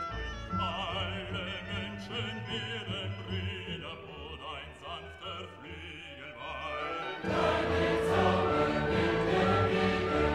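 Background music: classical-style singing with a wide vibrato, which swells about seven seconds in into louder, fuller choral music.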